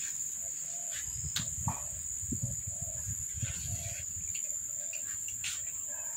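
A steady, high-pitched chorus of crickets or similar insects, with a soft low note repeating about every half second and some low rumble underneath.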